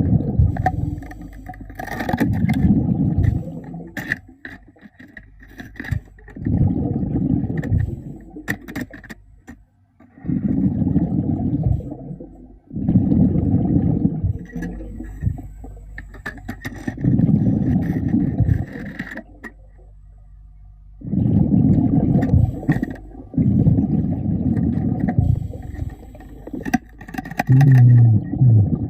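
A diver's exhaled air bubbling out of a breathing regulator underwater, in a low burst lasting a second or two every three to four seconds, with scattered sharp clicks in between.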